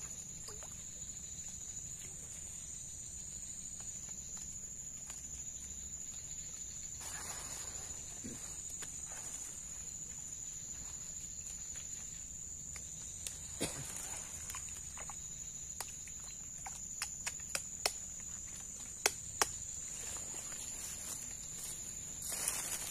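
Insects droning steadily at a high pitch, with a scatter of light, sharp clicks and ticks in the second half.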